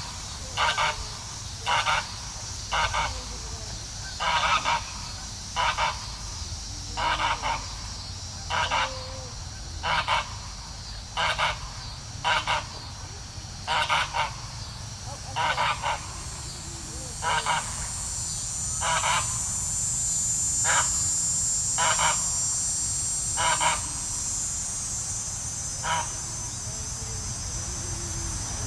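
Geese honking over and over, about one honk every second or so, the honks thinning out and stopping near the end. A steady high insect buzz runs underneath and grows louder about halfway through.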